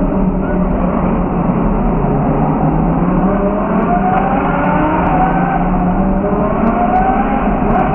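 Straight-piped Lamborghini engine heard from inside the cabin in a tunnel, running loud and climbing in pitch twice under acceleration, dropping back between the two climbs.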